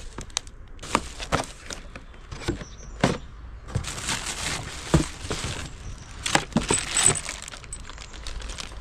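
Plastic packaging crinkling and a cardboard box rustling as chainsaw parts are unpacked, with scattered clicks and knocks of parts being handled.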